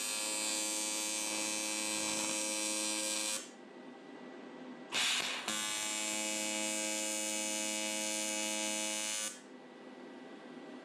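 TIG welding arc buzzing steadily while tacking metal plates onto an exhaust manifold. One arc lasts about three and a half seconds and stops. After a short crackle about five seconds in, a second arc of about four seconds follows and cuts off near the end.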